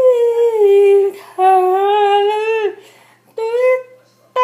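A woman's voice singing a hymn in long held notes, each sliding down a little at its end, in three phrases with short breaks between them.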